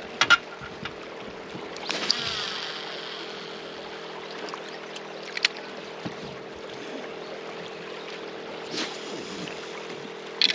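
Fishing rod being cast and then set in a rod holder: sharp clicks from the reel and rod handling, and a short whoosh about two seconds in, over a steady low hum.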